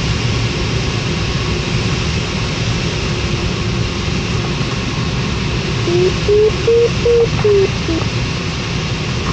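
Steady rush of air around a LAK17B glider's cockpit in flight. About six seconds in, the electronic variometer gives a short run of beeps that step up in pitch and back down, signalling a brief touch of rising air; another beep starts near the end.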